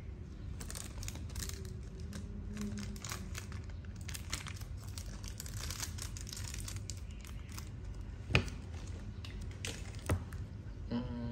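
A Zippo lighter being handled with crinkly rustling and scraping for several seconds, then two sharp clicks about two seconds apart.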